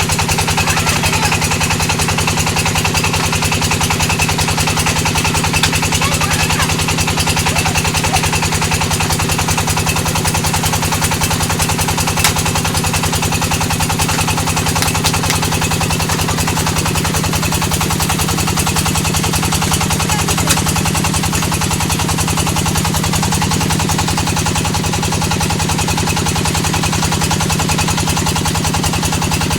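Brick-moulding machine running steadily, with a low hum and a rapid, even rattling that holds without a break.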